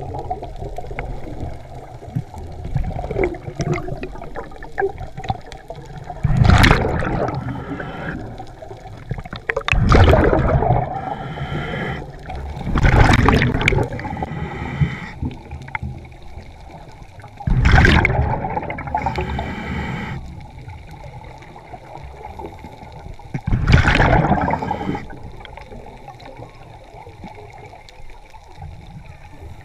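Scuba diver breathing through a regulator underwater: a loud rush of exhaled bubbles comes five times, a few seconds apart. Between the exhales there is a quieter steady hiss, and two brief whistly tones come from the regulator.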